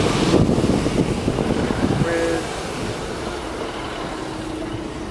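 Class 150 diesel multiple unit pulling into the platform: a dense rumble of the train, loudest over the first two seconds, then dropping to a quieter steady hum with a faint held tone.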